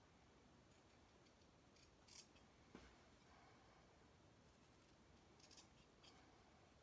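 Scissors snipping cotton fabric, trimming corners close to a seam: a few faint, short cuts spread out with pauses between them.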